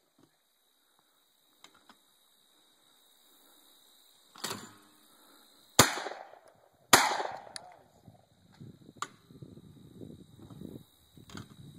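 A Benelli shotgun fires twice about a second apart, a double on a pair of clay targets, each shot sharp and loud with a trailing echo. A softer thump comes about a second and a half before the first shot.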